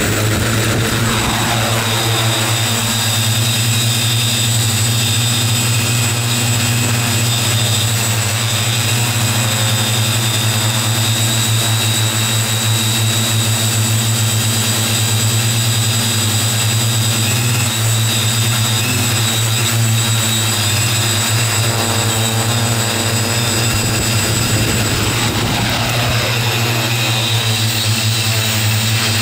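Xaircraft X650 quadcopter's electric motors and propellers running in flight, picked up by the camera mounted on the craft. It is a loud, steady hum with a low drone and a high whine over it.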